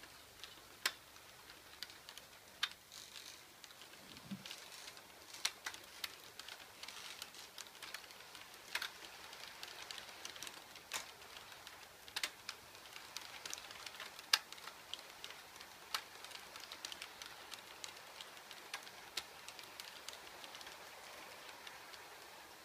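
H0-scale model passenger coaches rolling along the track, their metal wheels clicking irregularly over rail joints and points above a faint rolling hiss.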